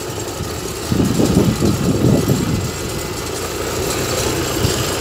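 Vehicle engine running in a low gear, holding the vehicle back as it rolls down a slippery muddy dirt slope, its rumble uneven under a steady hiss.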